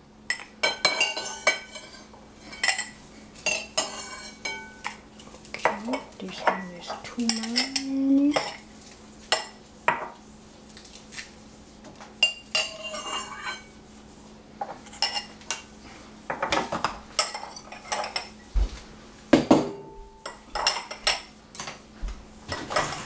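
Metal spoon clinking and scraping against a glass bowl and glass jars as olives are spooned from the bowl into the jars: many irregular, short clinks.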